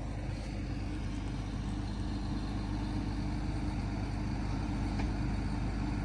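Caterpillar excavator's diesel engine running steadily, a low even drone with no revving.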